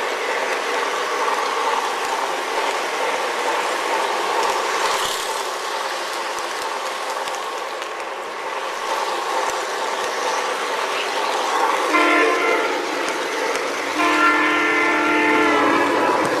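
Model trains running along layout track with a steady rolling noise, and a locomotive's onboard sound system blowing its horn: a short blast about twelve seconds in and a longer one about two seconds later that is still sounding at the end.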